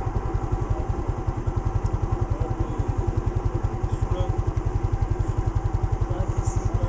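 Mondial 100 cc scooter engine idling, a steady, even pulse.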